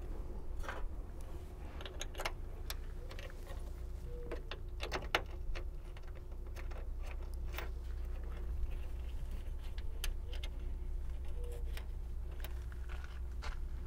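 Scattered light metallic clicks and taps from a hood shock's top mounting piece and its bolts being handled and fitted by hand, over a steady low hum.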